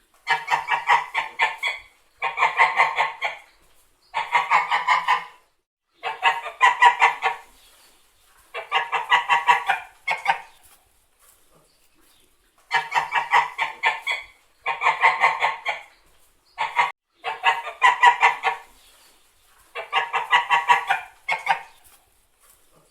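White geese honking in repeated bursts. Each burst is a fast run of honks lasting about a second and a half, and short pauses separate the bursts.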